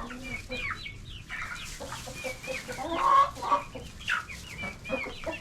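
Chickens clucking, with many short high notes and chirps from several hens overlapping; the loudest calls come about three seconds in.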